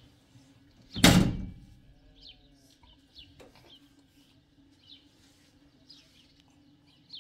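A sudden loud thump about a second in that dies away within half a second, followed by faint bird chirps scattered through the rest, over a low steady hum.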